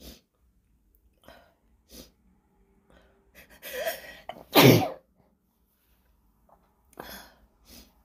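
A woman's induced sneeze: a few short, sharp breaths, then a halting build-up and one loud sneeze about halfway through. Two smaller breathy bursts follow near the end.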